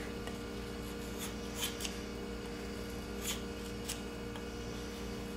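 A 1080 high-carbon steel knife blade shaving curls off a wooden board: a handful of short, quick scraping strokes over a steady hum.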